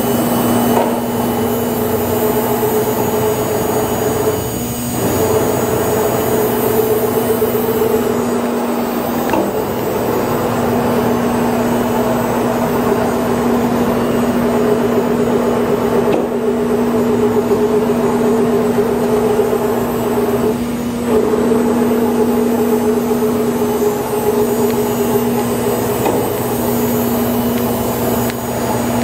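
Thermwood CNC router's spindle running at 14,500 rpm while the machine works through a program: a steady whine over a rushing noise, with the tone dipping briefly a few times.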